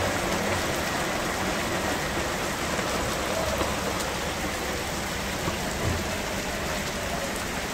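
Heavy rain falling steadily on a flooded street, a continuous even hiss of rain on water and wet ground.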